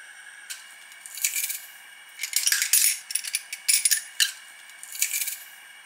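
Bursts of light rattling and clicking, several short clusters in a row, as red pepper powder is shaken from a spice jar onto a wooden spatula and garlic is squeezed through a metal garlic press.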